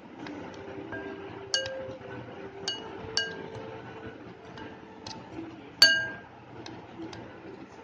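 Metal spoon stirring dry powder in a glass bowl and striking the glass: several ringing clinks, the loudest about six seconds in.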